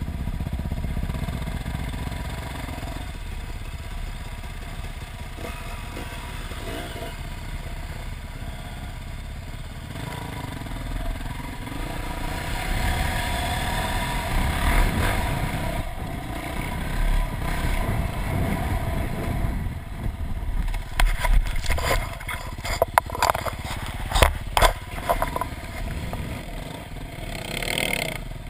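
Dirt bike engine running under the rider on a trail ride, heard from a helmet-mounted camera, its level rising and falling with the throttle. From about 21 to 26 seconds a run of sharp knocks and clatter stands out, the loudest sounds here.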